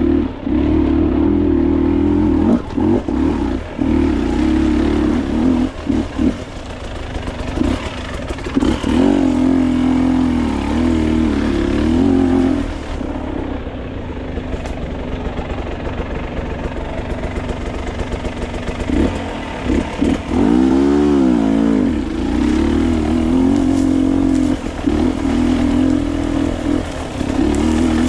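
Dirt bike engine running under the rider's throttle, its pitch holding and dipping as the throttle opens and closes. About twenty seconds in there is a quick rev up and back down.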